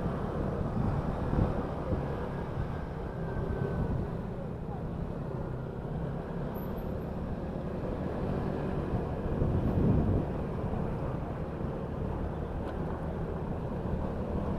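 Motorcycle riding noise: a steady engine hum with road and wind noise, swelling slightly about two-thirds of the way through.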